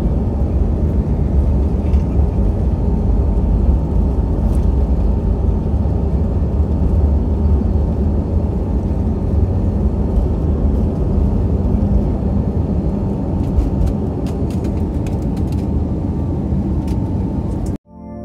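Airbus A321neo engines at takeoff thrust heard inside the cabin, a loud steady rush over a heavy low rumble from the takeoff roll; the rumble eases about two-thirds of the way through as the wheels leave the runway. Near the end the sound cuts off abruptly to soft ambient music.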